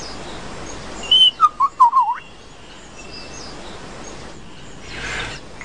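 Male lyrebird singing: a short high note about a second in, then a quick run of four or five whistled notes that bend up and down, over faint steady background noise.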